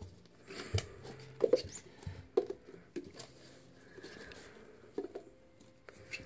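Plastic cups being handled and set down upside down on carpet while stacking a pyramid: a scattered series of short clacks and taps as cups knock together and land.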